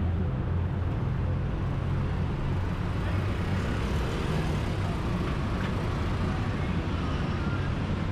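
Steady road traffic noise with a continuous low engine rumble from passing vehicles.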